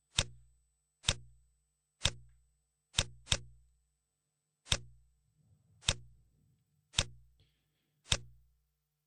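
Computer mouse clicking: about nine sharp clicks roughly a second apart, with two in quick succession about three seconds in.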